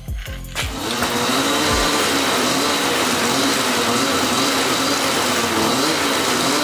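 Polaris 600 Axys snowmobile's two-stroke engine running with the track spinning freely up off the ground, a loud steady whir starting about half a second in, its pitch wavering slightly. The run checks that the track and newly fitted big idler wheels are aligned and running smooth after tensioning.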